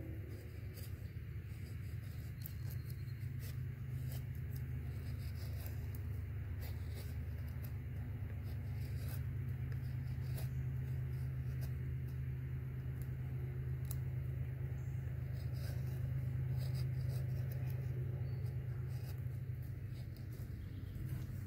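Nessmuk-pattern knife shaving thin curls off a stick to make a feather stick: a run of short, quick scraping strokes over a steady low rumble.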